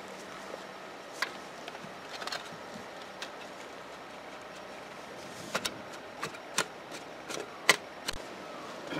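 Spade scraping and cutting into loose garden soil, mixing rotted manure into a planting hole: scattered scrapes and knocks, few at first and more frequent in the second half, the sharpest about three-quarters through.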